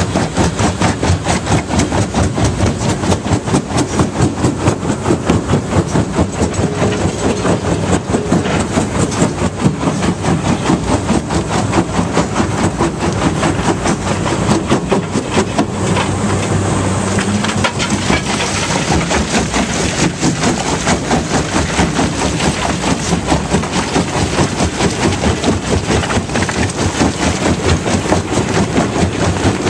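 Fintec 1107 jaw crusher crushing limestone: a steady engine drone under a constant, fast clatter and cracking of rock in the jaws.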